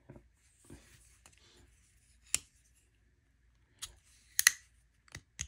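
Titanium folding knife worked open and closed by hand: faint scraping of the blade swinging on its pivot and a few sharp metallic clicks, the loudest about four and a half seconds in. The action is dry from the factory and needs grease.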